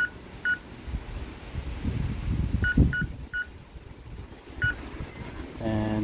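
Touch keypad of a BEBASIA keyless entry door lock beeping as a code is entered: six short, high beeps, unevenly spaced, two close together at the start, three in quick succession in the middle and one more near the end. Low handling bumps from the hand on the door, the strongest a little before the middle beeps.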